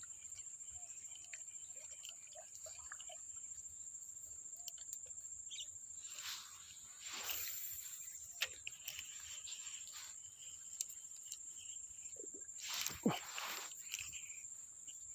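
Steady high-pitched chirring of crickets, with two brief rustling swells about six seconds in and again about thirteen seconds in.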